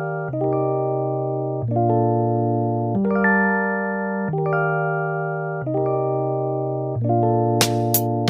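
Background music: electric piano chords changing about every second and a half, with drum hits coming in near the end.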